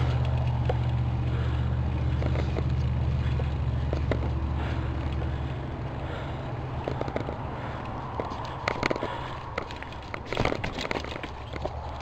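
Mountain bike ridden over bare rock: a low wind rumble on the chest-mounted camera's microphone that eases about halfway through, then scattered sharp clicks and clatters from the bike over the rough surface.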